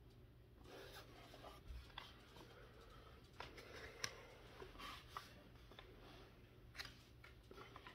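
Faint scratching of a felt-tip marker on a colouring-book page, with a few light taps and clicks scattered through, the sharpest about four seconds in.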